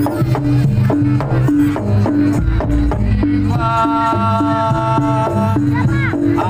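Live ensemble music: drums and percussion beat a steady rhythm under a repeating pitched pattern, with one long held note for about two seconds in the middle.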